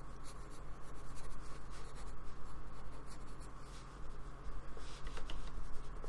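A paintbrush loaded with acrylic paint scratching and dabbing on card paper in a run of short strokes, over a steady low electrical hum.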